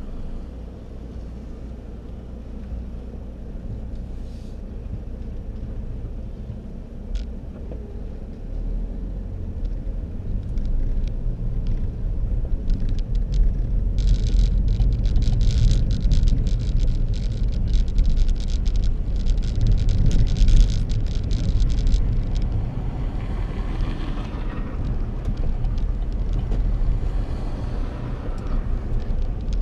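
A car driving: a low engine and road rumble that grows louder from about nine seconds in as it gets under way, with a stretch of crackling noise in the middle.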